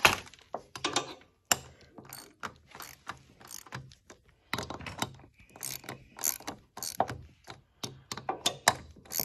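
Ratchet wrench clicking in short back-and-forth strokes, with a brief pause about four seconds in. It is tightening the bolts of a tapered collar that locks a mower deck pulley onto its spindle shaft.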